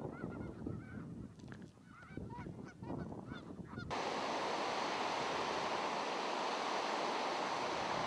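A flock of geese, mostly snow geese, honking with many overlapping calls. About four seconds in this gives way abruptly to the steady rush of water pouring over a low rocky cascade.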